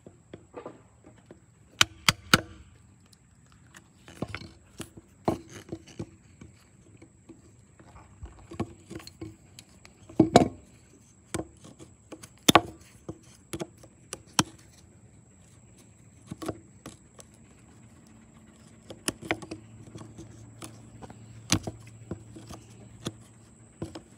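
Diagonal cutting pliers digging and prying at a piece of metal embedded in a persimmon slab: irregular sharp clicks, scrapes and knocks of the steel jaws against wood and metal, a handful of them much louder.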